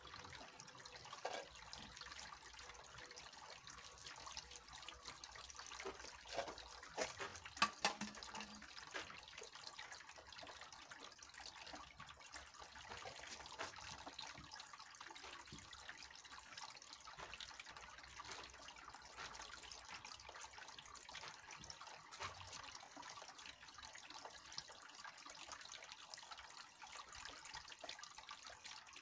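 Faint, steady trickle of water from a small garden pond fountain, with a few soft knocks about seven seconds in.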